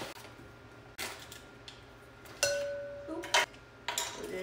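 Light clicks and clinks of kitchen utensils and measuring cups being handled, a few separate knocks, with a short steady tone lasting about a second midway.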